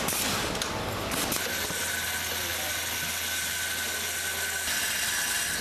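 Factory machinery running: a steady low hum with a steady high whine over a noisy mechanical background. The sound changes abruptly twice.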